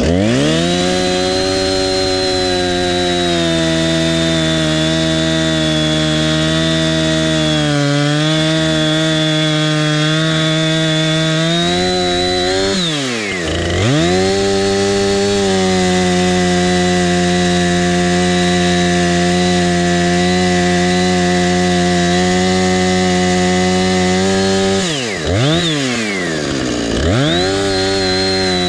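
Husqvarna Rancher 455 two-stroke chainsaw at full throttle, cutting into a tree trunk for the first felling cut. Its engine pitch drops and climbs back once about a third of the way in and twice near the end, as the throttle eases off and opens again.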